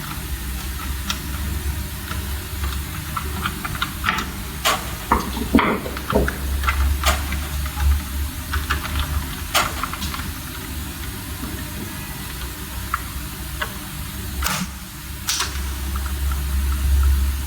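Scattered small clicks and a few sharper knocks of hand work on wires and DIN rail device terminals, over a steady low hum.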